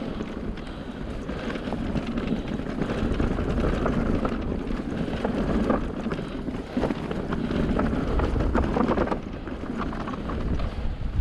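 Wind buffeting the camera microphone while an electric mountain bike rolls along a trail, with tyre rumble and scattered small clicks and rattles from the bike.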